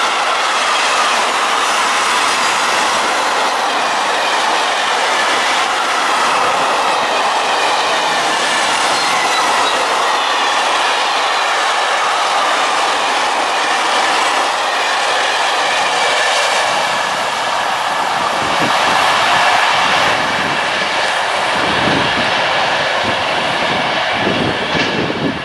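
Wagons of a long electric-hauled intermodal freight train rolling past at speed: a steady rush of wheels on rail with a faint whine. A few heavier knocks come near the end as the tail goes by, and then the sound starts to fall away.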